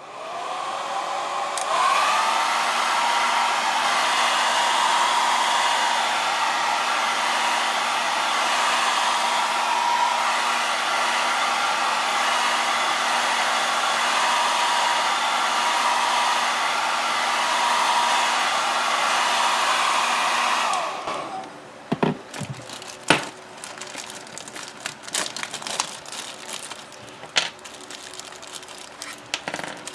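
Handheld hair dryer switched on, its whine rising as the motor spins up over the first couple of seconds, then blowing steadily to warm the adhesive under a phone's back cover, until it is switched off about twenty seconds in. Afterwards only scattered light clicks and taps.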